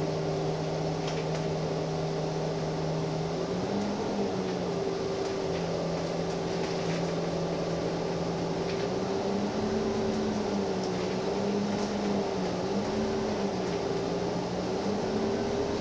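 Gillig Phantom transit bus's Detroit Diesel Series 50 engine droning at low speed, heard from inside the bus. Its pitch rises and settles a few times with light throttle, and a few faint rattles come through.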